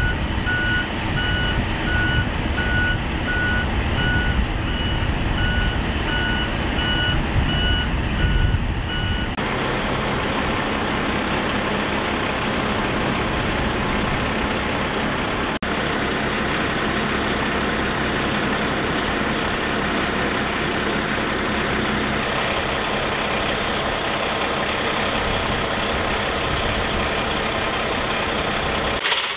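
A heavy military truck's reversing alarm beeping repeatedly over its diesel engine running. About nine seconds in the beeping stops and steady engine noise from the heavy trucks carries on.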